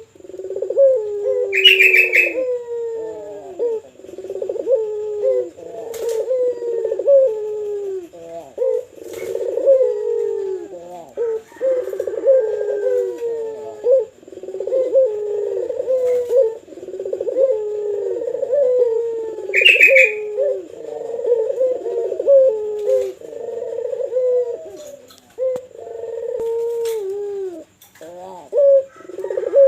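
Puter pelung dove (domestic ring-necked dove) cooing on and on in long, falling coos that overlap one another almost without a break. A short, higher chirp cuts in twice, near the start and about two-thirds of the way through.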